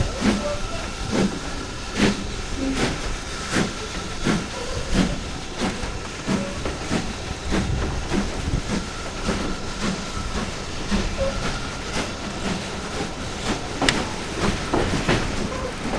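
Steam locomotive pulling a train away from the platform at low speed: even exhaust beats, roughly three every two seconds, over a steady hiss of steam.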